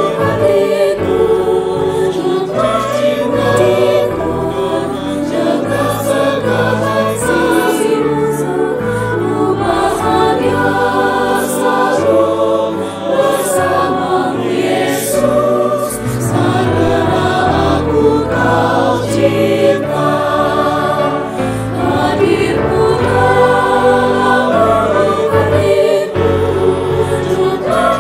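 Mixed choir of women and men singing a hymn in Indonesian, with sustained notes and continuous singing throughout.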